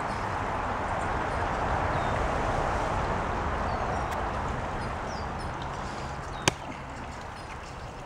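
Steady outdoor background noise with faint high chirps from small birds, and one sharp click about six and a half seconds in.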